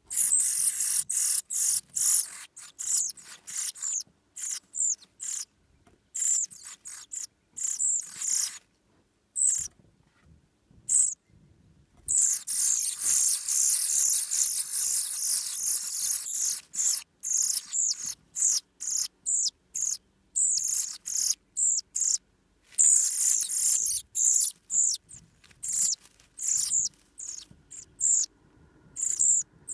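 Pied flycatcher nestlings begging with fast, high-pitched calls in repeated short bursts. About twelve seconds in the begging runs unbroken for several seconds as a parent arrives at the nest to feed them.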